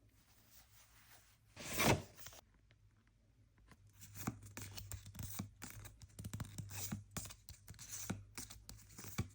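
Blind-box packaging being torn open: one loud tear about two seconds in, then a run of crinkling, clicking and rustling as the wrapping is handled.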